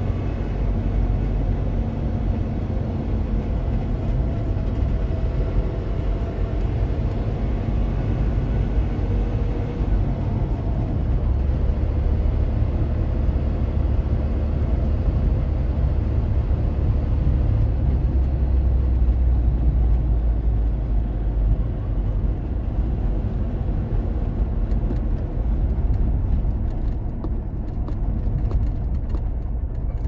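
Trabant 601 driving, heard from inside the cabin: its two-stroke two-cylinder engine running steadily under road and tyre noise. The car has a rattle somewhere ('irgendwas klappert'), which the owner suspects may be a wheel bearing.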